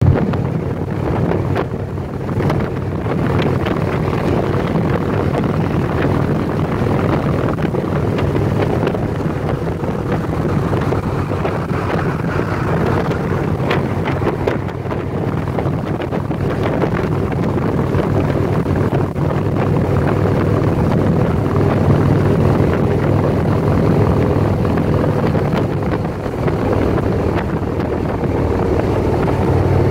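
Motorcycle engine running at a steady speed, with wind noise on the microphone.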